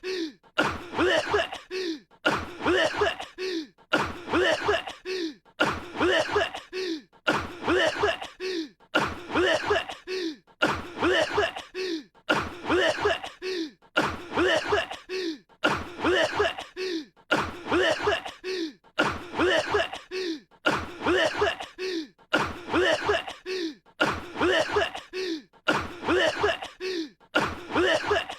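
A young man's voice-acted coughing, the same short fit of coughs repeating evenly about every second and a half, as if on a loop.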